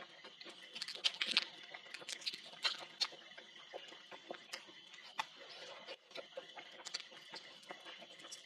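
Close-up eating sounds: meat being torn and picked off a bone by hand, with wet clicks, crackles and lip smacks at an uneven pace, loudest about a second in. A steady high chirring of night insects runs underneath.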